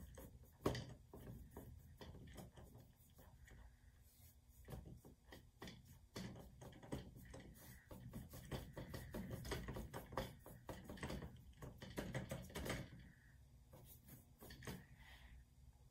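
Big flat brush scrubbing grey acrylic paint onto a canvas in quick repeated strokes: a faint, dry scratchy rubbing with one sharper knock about a second in.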